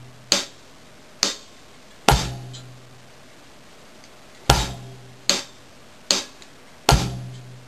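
Drum kit playing a slow bossa nova beat, one stroke at a time: hi-hat strokes, with a cross-stick rim click and bass drum added on the first and fourth beats. Seven evenly spaced hits, about one every 0.8 s, with a pause of about two seconds after the third.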